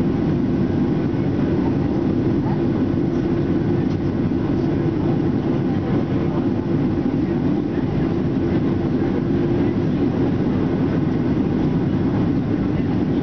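Steady cabin roar of a Boeing 737-800 heard from a seat over the wing: its CFM56-7B turbofans and the airflow over the fuselage, deep and even with no change in level, on the descent toward landing.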